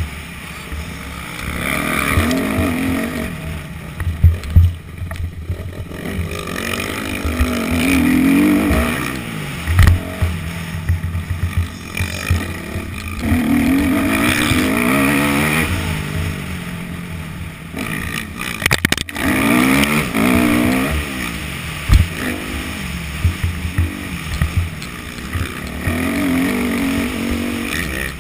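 Yamaha YZ250F four-stroke single-cylinder motocross bike ridden hard, its engine revving up and falling back several times through the corners and straights, heard close up from a helmet-mounted camera. Sharp low thumps break in now and then.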